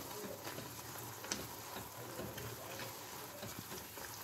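Silicone spatula stirring and mashing a soft, wet bread-and-khoa mixture in a nonstick pan, with a few light clicks as it knocks the pan, over the faint bubbling of the simmering halwa.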